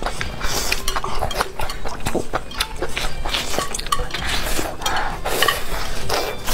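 Close-miked eating sounds: wet chewing, smacking and slurping of noodles, mixed with frequent small clicks from chopsticks and utensils.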